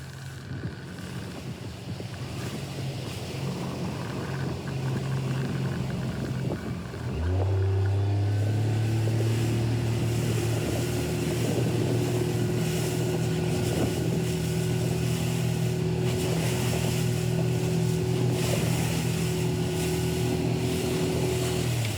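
Motorboat engine running, opening up about seven seconds in to a louder, steady note and easing off just before the end, with wind and water noise throughout.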